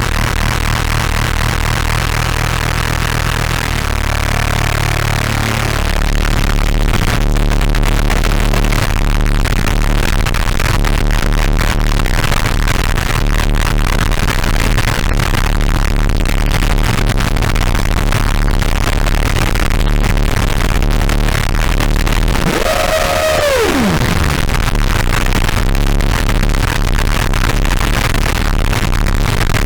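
Synth strings played through the Caustic FX Snowstorm noise distortion pedal: a dense, harsh wall of distortion over steady heavy bass, getting louder about 6 s in. About three quarters of the way through, one tone glides steeply down in pitch.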